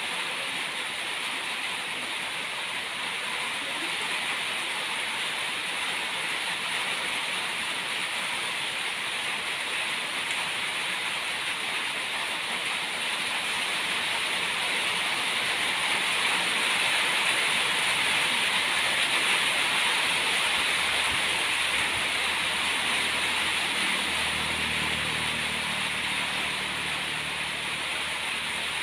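Steady outdoor hiss that swells a little around the middle, with a low engine-like hum joining about four-fifths of the way through.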